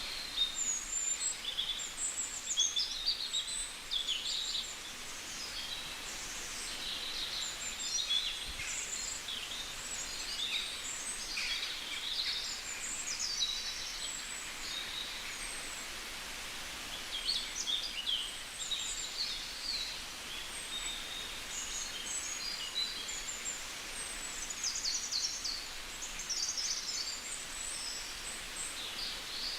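Songbirds chirping and twittering in quick, high bursts, busier in stretches with brief lulls, over a steady outdoor hiss.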